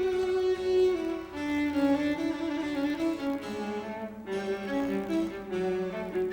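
Background music: a slow melody on bowed strings, cello and violin, with sustained notes that change every half second or so.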